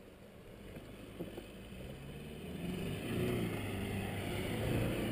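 Toyota Hilux pickup's engine running as it drives toward the camera, getting louder from about halfway through, its pitch rising and falling as the driver works the throttle.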